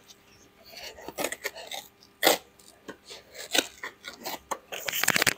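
Cardboard shipping box being cut and opened: scissors scraping through packing tape and cardboard flaps rubbing, with scattered sharp scrapes and knocks, the loudest about two seconds in and a dense run near the end.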